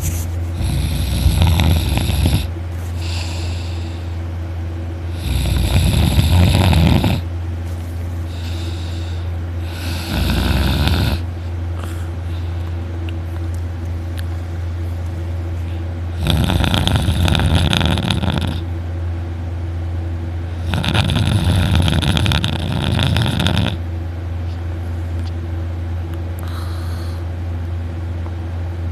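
A young man snoring very loudly in deep sleep: long, loud snores every few seconds, with fainter ones between them, over a steady low hum.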